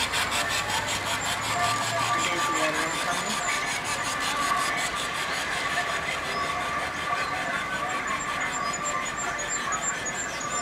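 Garden-scale model train running along its track, with a quick regular clicking of about four to five a second that fades out about four seconds in as the train moves away.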